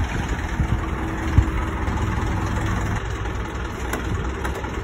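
Isuzu light truck's diesel engine idling with a steady low rumble, with a single knock about a second and a half in.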